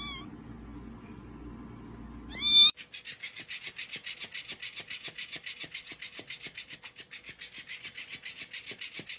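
A kitten meows briefly, then gives a louder rising meow about two and a half seconds in. After it comes a fast, even rasping rhythm of about seven strokes a second from the plush fish toy the kitten is playing with.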